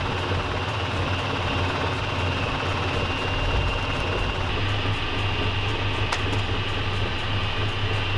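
Tanabe Willtec CS113 top-discharge basket centrifuge running at speed, its basket spinning at about 1,060 rpm: a steady low hum from the motor and V-belt drive with a faint high whine over it.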